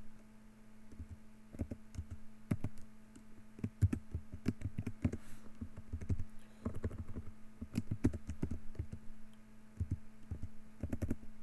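Computer keyboard typing: quick runs of keystrokes with short pauses between them.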